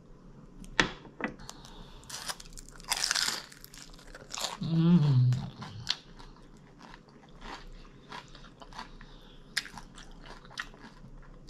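Biting into a crispy shrimp egg roll and chewing it close to the microphone: sharp crunches in the first few seconds, then many small wet mouth clicks. A short falling hum of the voice comes about five seconds in.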